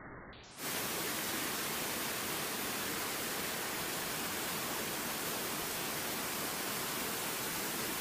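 Small waterfall pouring into a rocky pool: a steady, full rush of falling water that cuts in suddenly about half a second in, after a quieter, duller stream sound.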